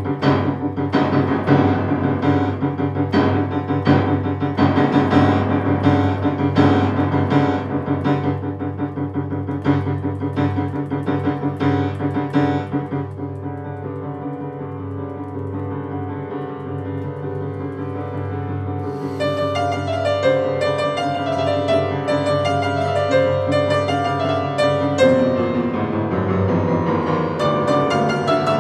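Upright piano playing a solo sonata: loud, repeated chords over a deep bass for the first dozen seconds, then a softer held passage, then from about twenty seconds in quicker, higher running notes with a falling line in the middle register.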